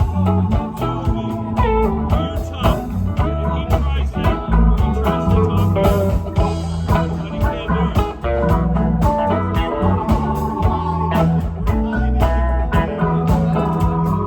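Live rock band playing a blues number: electric guitar lines over bass, drums and keyboards, with no singing.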